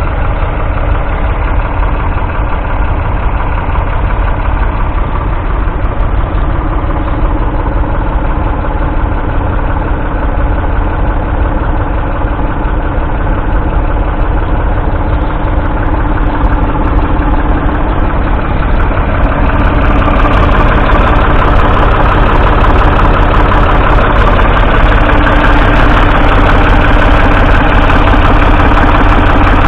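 Ford 3000's 2.9-litre three-cylinder diesel tractor engine running steadily, growing louder about two-thirds of the way through.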